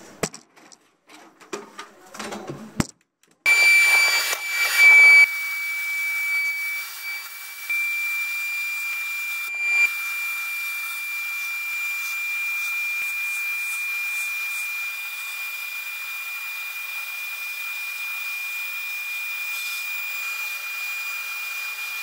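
A few knocks as the bell's rusty dome is set down and handled on the cabinet grate. About three seconds in, a sandblasting cabinet's blast gun switches on: a loud, steady hiss of air and abrasive with a high whistle in it, blasting rust off the dome.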